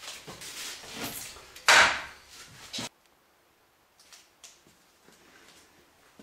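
Thin maple laminating strips handled in the hands, sliding and knocking against each other, with the loudest scrape about two seconds in. The sound cuts off suddenly just under three seconds in, leaving only a few faint ticks.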